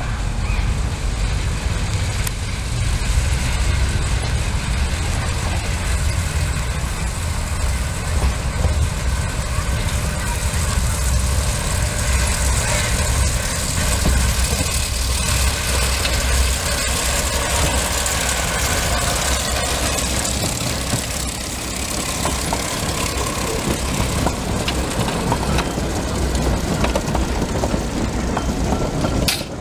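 Small battery-electric 50 cm narrow-gauge park train running along its track: a steady rumble and hiss of wheels on the rails as it approaches and passes.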